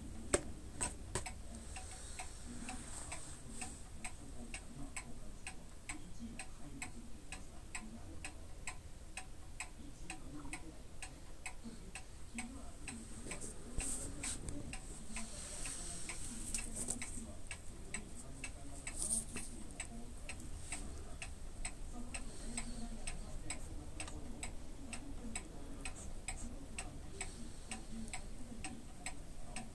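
Steady, even ticking, about two ticks a second, over a faint steady hum.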